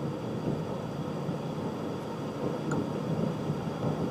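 Steady low background hum and hiss of the room with no change, as of an air conditioner or similar running.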